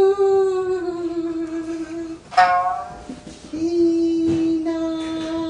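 A woman's voice chanting a haiku in long, drawn-out held notes rather than speaking. A new note begins about two seconds in, and the last note is held steady through the second half.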